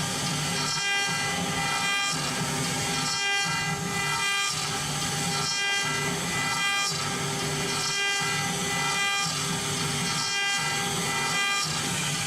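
CNC router cutting, its spindle whining steadily over a rough cutting noise that swells and drops about once a second.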